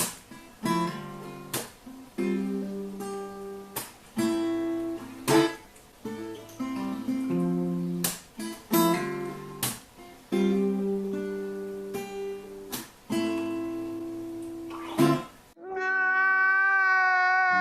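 Acoustic guitar strummed in slow chords, each chord struck and left to ring. Near the end the guitar stops and a held, wavering high tone takes over.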